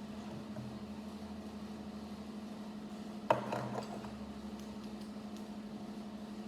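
Hard plastic Lego pieces: one sharp click about three seconds in, followed by a brief rattle of small pieces, over a steady low hum.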